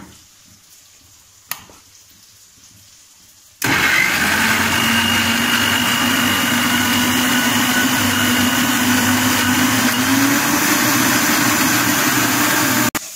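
Philips mixer grinder motor starting suddenly a few seconds in and running steadily while it grinds garlic, green chillies and ginger into a paste, its pitch rising a little near the end, then switched off and cutting out abruptly. A single click comes before it starts.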